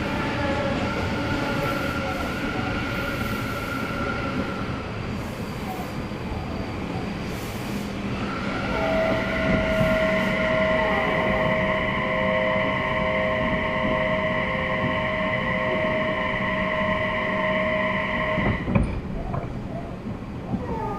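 Odakyu 3000-series electric train running, heard from inside the car, with rumbling running noise. From about eight seconds in, a steady high-pitched whine of several tones holds for about ten seconds, then cuts off with a knock.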